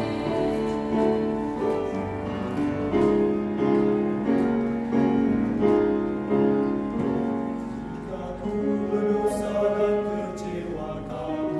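Mixed choir of women's and men's voices singing a praise hymn in parts, holding chords that change about every second.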